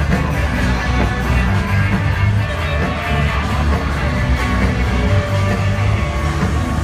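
Loud rock music with guitar and singing.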